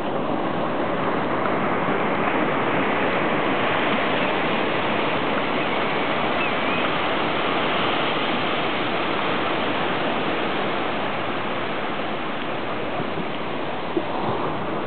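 Ocean surf breaking on the shore, a steady rushing noise.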